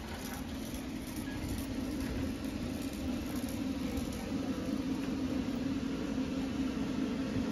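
Loaded shopping cart rolling over a concrete warehouse floor: a steady low rumble with a hum.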